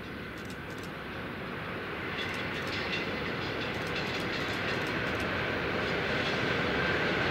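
Long freight train approaching: a steady rumble of wheels on rail that grows louder throughout, with a run of clicks from the wheels in the middle.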